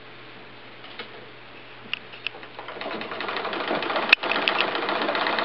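A 1919 Singer 15 sewing machine driving an antique spinning wheel head attached to it. A few separate clicks come first, then about halfway through it picks up into a fast, steady mechanical clatter, with one sharp click a little later.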